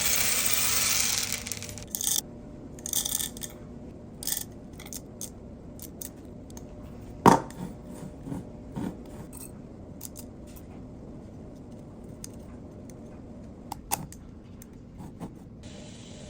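Small hard objects handled on a work surface: scattered sharp clicks and taps, with a short rushing noise at the start and one louder knock about seven seconds in.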